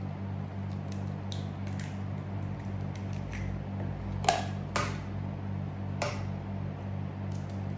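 Eggs being cracked against the rim of a mixing bowl: a few short sharp knocks, the loudest a little past halfway, over a steady low electrical hum.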